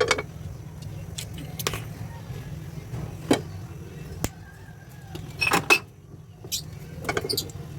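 Kitchen utensils and dishes being handled: about a dozen irregular knocks and clinks, some in quick clusters, over a steady low hum.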